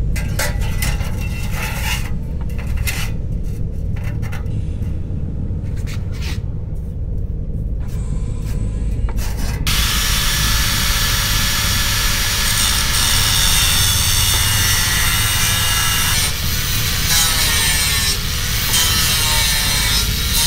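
Angle grinder with a cut-off disc cutting a sword blank out of steel sheet: a dense, continuous grinding hiss starts about halfway through, and the motor's pitch sags for a moment near the end as the disc bites. Before it, short irregular scrapes and knocks.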